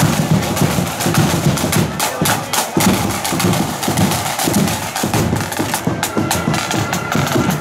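Marching flute band playing, its drums beating a steady march rhythm, with held flute notes showing near the end.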